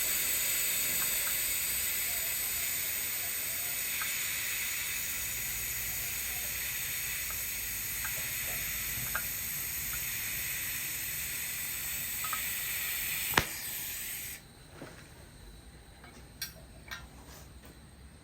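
TIG (GTAW) welding arc hissing steadily while tacking carbon-steel pipe, cutting off abruptly about 14 seconds in. A few light clicks follow.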